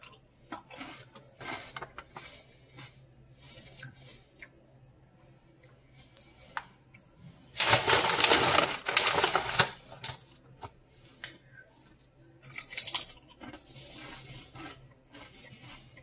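Crunching and chewing of crispy fried squid snacks, heard as scattered crackles and clicks. Loud crinkling of a foil snack bag being handled from about eight to ten seconds in, with another short crinkle near thirteen seconds.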